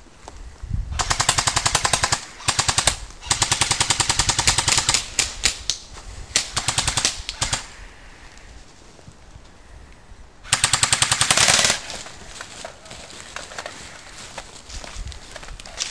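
Airsoft rifle firing on full auto in several rapid bursts of clicking shots, with a longer pause near the middle before a final burst.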